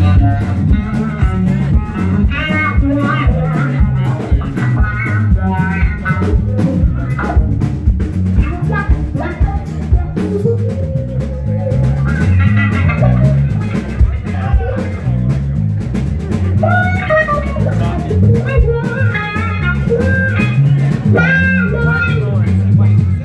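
Live electric blues-rock: a Stratocaster-style electric guitar plays loud lead lines with bent notes over a drum kit.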